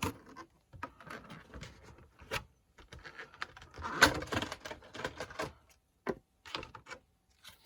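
Pokémon trading cards and their packaging being handled: irregular light clicks and rustles, with a louder stretch of rustling about four seconds in.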